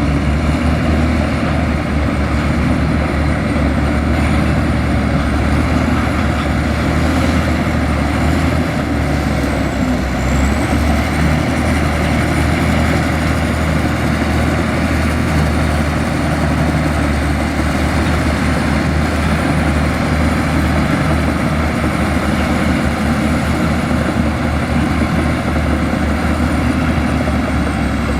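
Heavy diesel engine of earth-moving machinery running steadily under work, with a thin high whistle that wavers and dips briefly about ten seconds in.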